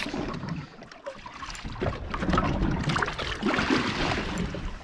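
Fishing boat at sea: steady engine and water noise, with scattered small knocks and clicks.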